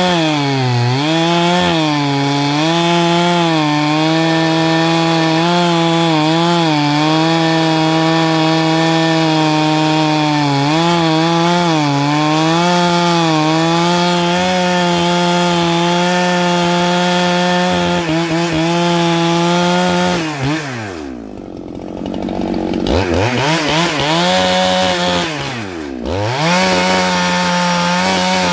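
A Neo-Tec chainsaw, a Husqvarna 395 clone, runs at full throttle through a large log, its pitch sagging again and again as the chain bites under load. About two-thirds of the way through it drops to idle for a couple of seconds, then revs back up, dips once more and goes back into the cut at full speed.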